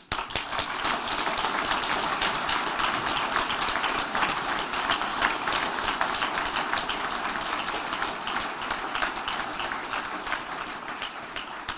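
Audience applauding: many people clapping, starting all at once and thinning out near the end.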